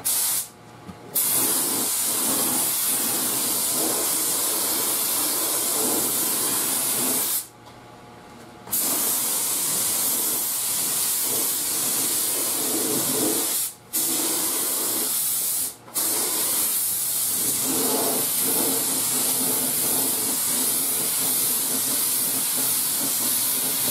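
Compressed-air spray gun with a hanging cup spraying lacquer: a loud, steady hiss of air and atomised finish, stopping briefly four times as the trigger is let off, the longest pause at about seven seconds in.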